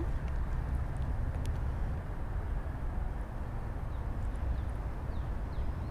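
Creek ambience: a steady low rush of outdoor noise, with a few faint high chirps in the second half.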